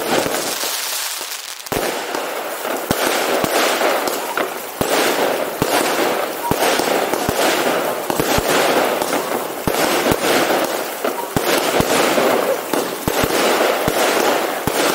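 Fireworks display in full barrage: a rapid, irregular run of sharp bangs over continuous crackling and hiss.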